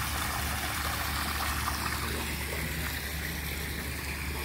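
Steady splashing and trickling of water circulating through a concrete fish pond's recirculating filter system, water pouring from the return pipe into the pond, under a low steady hum.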